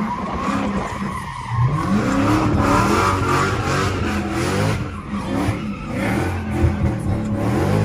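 Dodge Charger's engine revving up and down over and over while its rear tires squeal and skid through a smoky drift, heard from inside the cabin.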